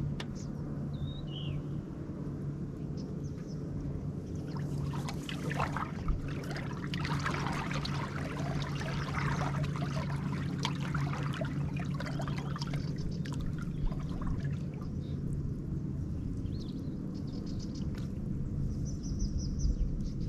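Water splashing and trickling against the float boat's pontoons for several seconds in the middle, over a steady low hum. A few short bird chirps come near the start and again near the end.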